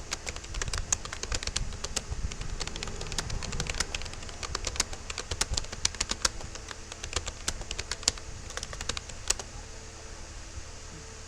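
Fast touch-typing on a Rapoo computer keyboard: a dense, irregular run of key clicks that stops about nine seconds in, leaving a faint steady hiss.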